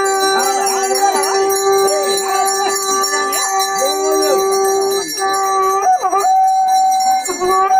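Brass hand bells being rung continuously during worship, over a long steady pitched note that breaks off about five seconds in and starts again, with voices underneath.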